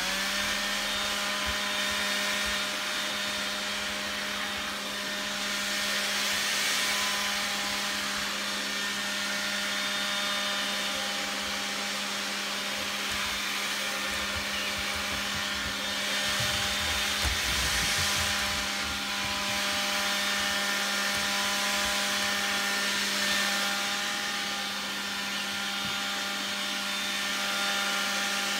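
Stick vacuum cleaner running steadily, a constant motor whine with hissing suction. A few low bumps come about two thirds of the way through.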